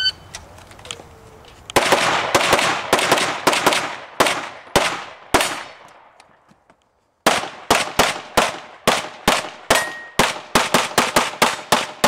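A shot timer's start beep, then rapid strings of pistol shots from a Glock 34 Open-division gun loaded to make major power factor: about a dozen quick shots, a break of under two seconds, then another fast string of shots.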